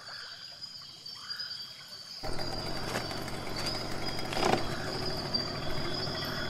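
Wild outdoor ambience: a steady high-pitched insect drone with a few faint short calls. About two seconds in it switches suddenly to louder, noisier outdoor sound.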